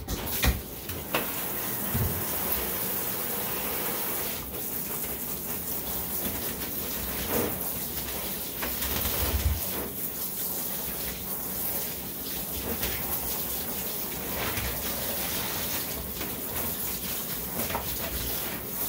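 Water from a bath tap running steadily into a tub, starting at the outset, with a few small knocks.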